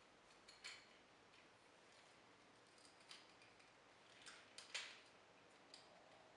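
Faint, scattered clicks and taps of a plastic Transformers action figure's parts being handled and snapped into place, the loudest a little before five seconds in, over near-silent room tone.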